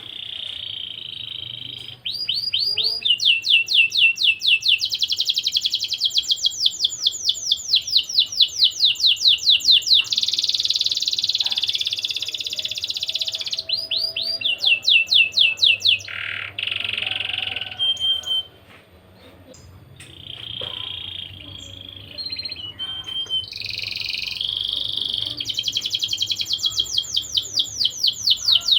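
Domestic canary singing a long, fast song of rapid trills, each made of quickly repeated high notes, broken by short pauses and a quieter, lower stretch a little past the middle.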